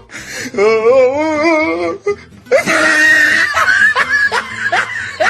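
A wavering, warbling musical tone for about two seconds, then laughter with short rising cries repeated about twice a second.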